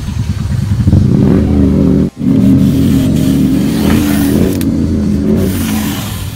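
A motor vehicle engine running loudly nearby. It grows louder about a second in, cuts out sharply for a moment just after two seconds, and fades near the end.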